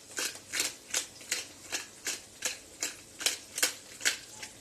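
Black pepper being ground in a handheld pepper mill over a pan: a steady run of short, dry crunching twists, about three a second.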